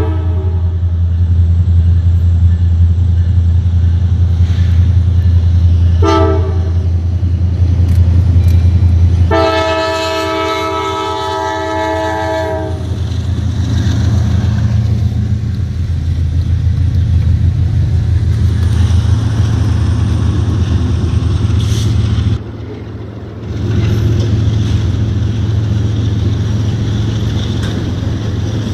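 Diesel locomotive running close by with a steady low rumble, its multi-tone air horn sounding three times. The first is the tail of a blast right at the start, then a short toot about six seconds in, then a longer blast of about three seconds.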